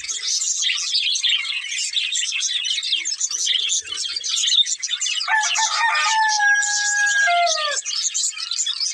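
Budgies chattering and chirping in a fast, continuous high warble. About five seconds in, a rooster crows once: a drawn-out lower call lasting about two and a half seconds that falls at the end.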